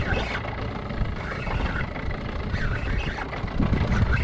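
Wind buffeting the microphone in an uneven low rumble.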